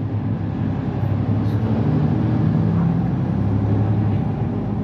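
Mercedes-Benz Citaro C2 city bus's OM936 inline-six diesel running with a steady low drone, its note shifting slightly about four seconds in.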